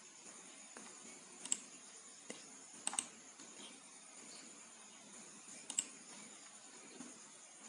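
Computer mouse clicking a few times, short sharp clicks with two of them doubled, over faint steady hiss.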